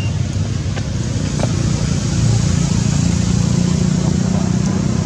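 A motor vehicle engine running steadily, a low hum that grows a little louder about two seconds in.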